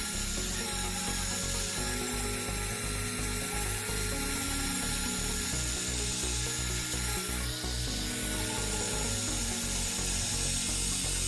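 Electric angle grinder with a sanding disc running steadily and rubbing over a rusty, pitted steel blade: a constant whine with a gritty hiss of abrasion. Background music with low bass notes runs underneath.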